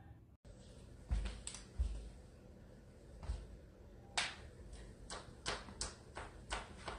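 Quiet room with scattered sharp clicks and taps, coming faster, about three a second, in the second half, and two low thumps a little after a second in.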